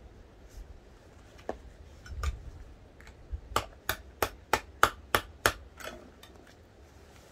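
Hammer strikes: a few scattered knocks, then about three seconds in a quick run of about eight blows, roughly three a second.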